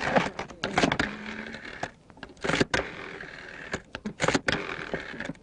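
Rustling, crinkling sound of a plastic rubbish bag being handled, broken by many sharp clicks and knocks.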